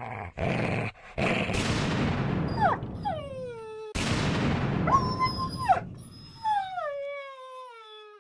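Dog howling over two loud rushing noise swells. The howls slide down in pitch, one rising and holding briefly in the middle, and several overlap and fade out near the end.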